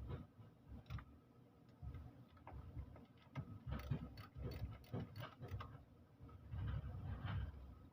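Faint, irregular light clicks and soft knocks of hand tools and parts being handled during work on an engine's fuel injector.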